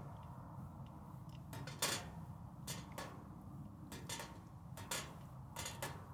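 Irregular clinks and knocks of utensils against cookware, the loudest about two seconds in, over a low steady rumble.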